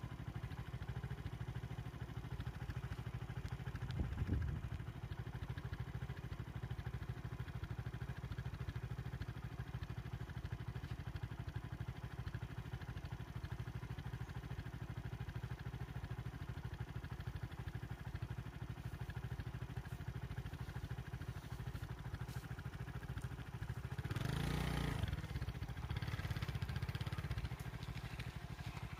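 A vehicle engine idling steadily with a low rumble, and a louder rush of noise for a couple of seconds near the end.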